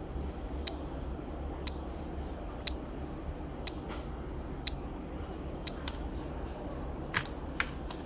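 Citizen Eco-Drive quartz watch's stepping-motor pulses, picked up by a pickup coil and amplified through a small loudspeaker: sharp clicks once a second over a steady low hum. Two or three louder, irregular clicks come near the end.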